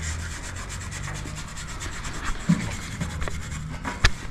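Steel wire brush scrubbing back and forth over the tractor's metal, cleaning off grime to bare stamped letters and numbers so they can be read. A sharp click near the end.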